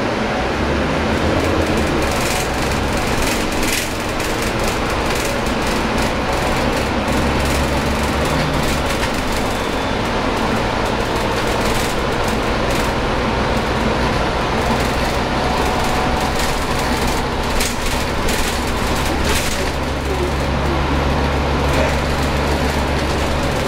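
Volvo B9TL double-decker bus's six-cylinder diesel engine running under way, heard inside the upper deck, a steady drone with its low note swelling in stretches, about seven seconds in and again from about twenty seconds. Clicks and rattles from the bus body come through in bursts, most around two to four seconds and seventeen to twenty seconds in.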